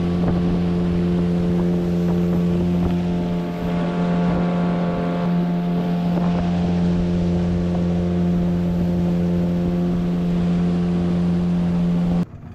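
Boat's outboard motor running at a steady speed while the boat is underway: a constant, even hum with a rush of wind and water. It cuts off suddenly near the end.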